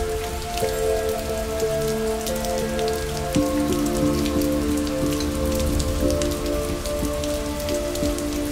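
Soft ambient music of long held notes that shift every second or two, over a steady patter of rain.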